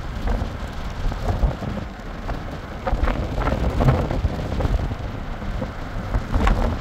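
Wind buffeting the microphone: a heavy low rumble with scattered crackles and knocks.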